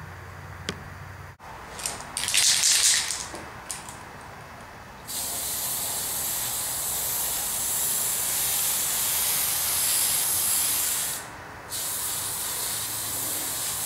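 Tamiya aerosol spray paint can spraying: a short burst of hiss about two seconds in, then a long steady hiss from about five seconds in that stops briefly near the end and starts again.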